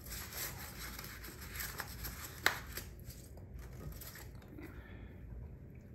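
Rustling and crinkling of packing material, plastic wrap and foam packing peanuts, as a hand clears them out of a wooden box frame, with one sharp click about two and a half seconds in.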